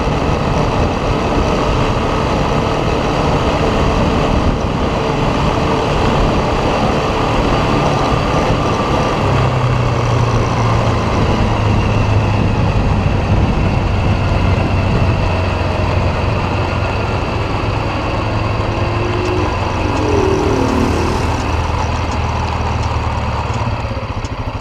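ATV engine running steadily, with a low steady hum that grows stronger about nine seconds in.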